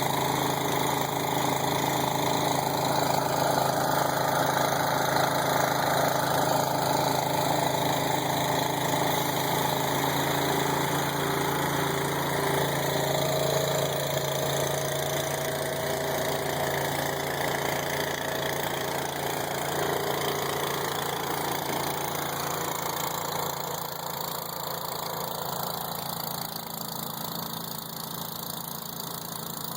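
Engine running steadily at idle, easing slightly quieter near the end.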